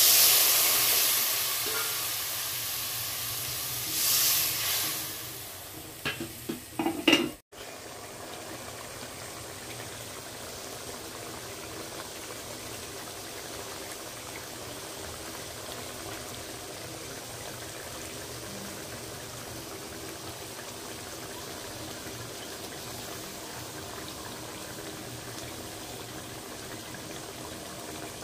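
Water poured into hot oil and spice paste in a wok bursts into a loud sizzle that fades over a couple of seconds, with another surge of sizzling about four seconds in and a few sharp knocks around six to seven seconds. After that the sauce simmers steadily and quietly.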